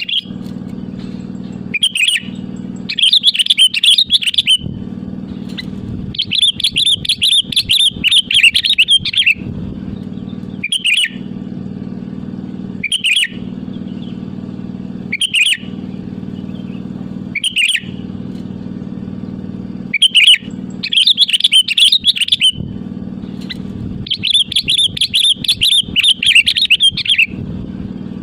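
Sooty-headed bulbul (kutilang) singing in full voice. Lively chattering phrases lasting two to three seconds alternate with short single calls, over a steady low hum.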